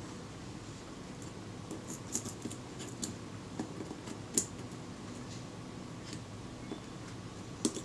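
Small sharp metallic ticks and clicks, scattered and irregular, as tweezers and a fine hook tool touch the tiny levers and parts of a leaf shutter being reassembled; the loudest comes about four and a half seconds in. A steady low room hum lies underneath.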